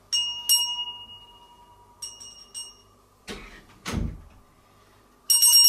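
Small handbell rung: two clear strikes that ring on and fade, then two softer strikes about two seconds in. A couple of dull knocks, the second a low thump, come between three and four seconds in. A little after five seconds the bell is shaken fast, ringing loudly and continuously.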